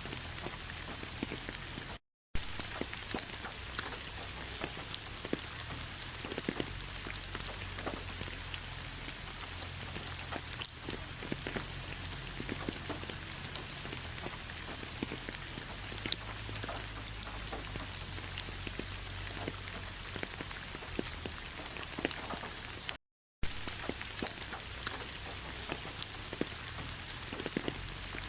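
Steady rain falling on a bed of fallen autumn leaves: an even hiss with many individual drops ticking sharply on the leaves. The sound cuts out completely twice for a fraction of a second, about two seconds in and again about five seconds before the end.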